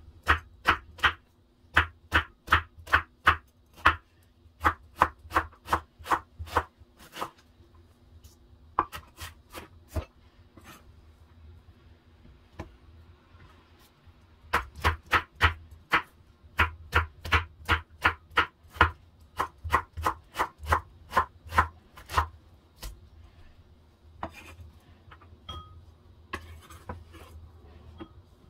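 Kitchen knife dicing an onion on a wooden cutting board: quick, even knocks of the blade on the board, about three or four a second, in two long runs with a pause between them and a few scattered taps near the end.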